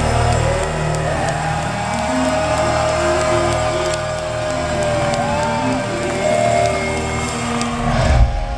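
Live rock band playing loud: long held and bending notes over bass and drums, the bass thinning out about halfway through, with one heavy low hit near the end.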